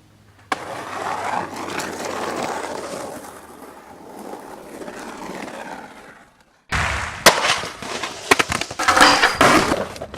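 Skateboard wheels rolling on pavement, the sound swelling and fading as the board passes. After a sudden cut about two-thirds in comes a run of sharp clacks and knocks from the board hitting the ground, with rolling in between.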